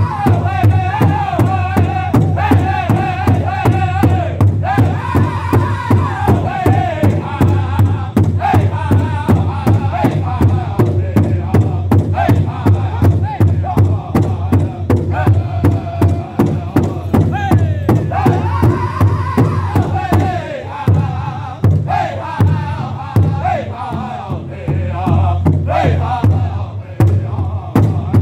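Powwow drum group singing a traditional song in high-pitched unison over a steady, fast beat struck together on a large shared drum. The drumming and singing drop in level about two-thirds of the way through, then come back strong near the end.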